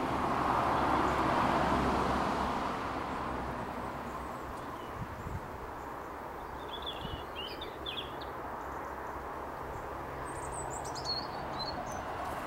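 A vehicle passing, its noise swelling and then fading over the first few seconds. Later a small bird gives two short bursts of high chirps, about seven and eleven seconds in, the second falling in pitch.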